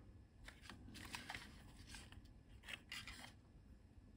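Faint handling noise: a few short scratches and clicks as fingers grip and shift a small circuit board and tug at its wires.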